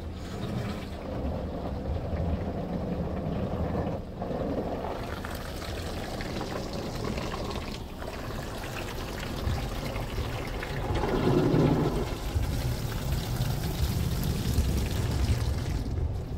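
Ryko SoftGloss Maxx 5 automatic car wash spraying water over the car's body and glass, a steady rushing and splashing heard from inside the cabin, swelling louder about eleven seconds in.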